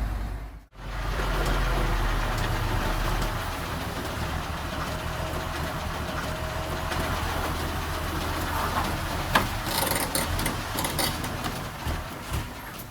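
Diesel engine of heavy earthmoving machinery running steadily, cut off by a brief dropout under a second in. Several sharp clanks come near the end.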